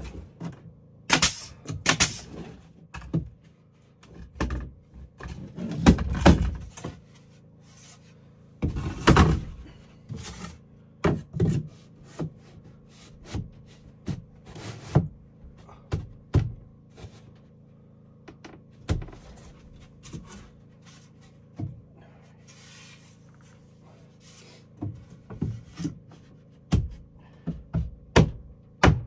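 Irregular wooden knocks and thuds of boards being handled and worked, with a couple of longer scraping sounds about six and nine seconds in.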